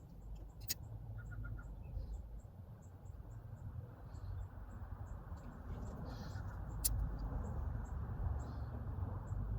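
Faint high chirps repeating about three times a second, like insects, over a low steady rumble, with a couple of sharp clicks.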